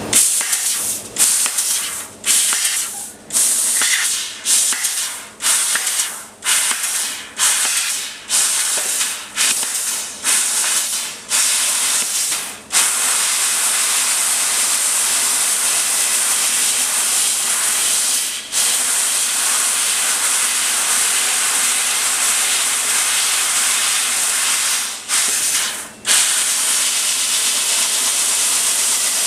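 Fiber laser cutter's assist-gas jet hissing as the head cuts 1 mm stainless steel sheet. It starts as about a dozen short on-off blasts roughly a second apart, then settles into a steady hiss broken twice briefly.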